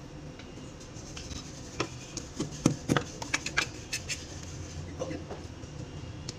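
A quick run of light clicks and taps from screws and plastic fittings being handled on the tiled floor beside a toilet drain flange, bunched near the middle, over a steady low hum.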